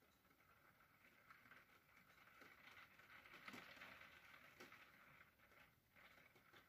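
Faint rain falling, a soft steady patter of drops with scattered small ticks, swelling a little about halfway through with a couple of louder drop hits.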